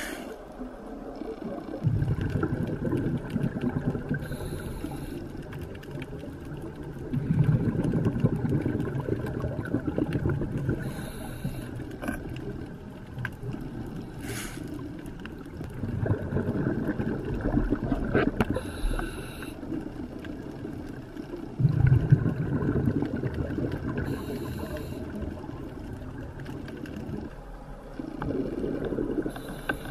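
Scuba diver breathing through a regulator, heard underwater through the camera housing. Short hisses of inhalation alternate with the bubbling rumble of exhaled air, five breaths spaced several seconds apart.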